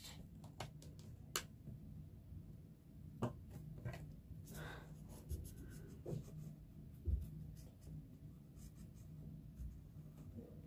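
Graphite pencil scratching faintly on paper as a drawing is shaded, with scattered light ticks and a soft thump about seven seconds in.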